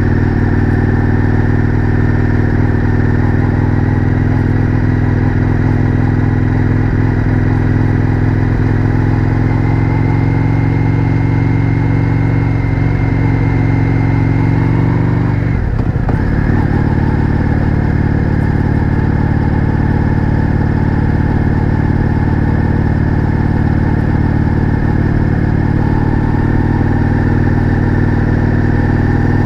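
Indian FTR 1200's V-twin engine running through its Akrapovič exhaust while cruising, heard from on board. The engine note rises slowly, then breaks and drops a little about halfway through at an upshift, and runs steady after that.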